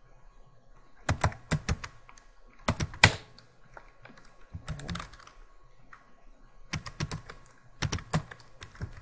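Typing on a computer keyboard: five short bursts of keystrokes with pauses between them.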